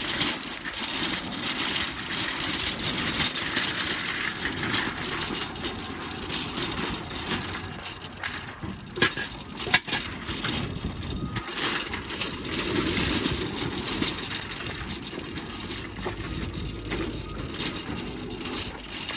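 Wire shopping cart rolling over rough pavement, its basket and the loose metal car parts in it rattling, with a few sharper clanks about halfway through.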